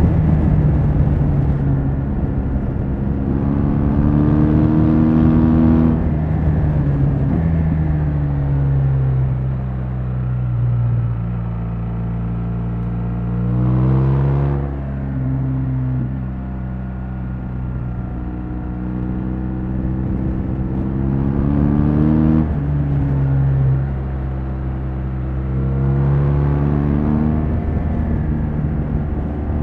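BMW R1200 GS LC's flat-twin boxer engine running through its stock exhaust. The revs climb and then drop back sharply several times, with one quick rise and fall about halfway through.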